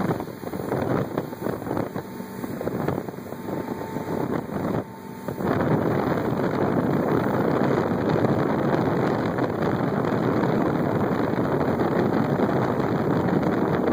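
Open-bow speedboat underway: its engine runs under the rush of wind over the microphone. The sound dips briefly about five seconds in, then grows louder and holds steady.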